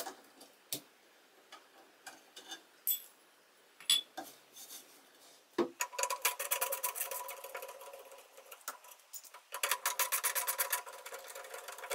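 Screwdriver undoing the screws that hold a solid wooden door handle, with scattered clicks and a knock, then two long runs of rapid, even clicking in the second half.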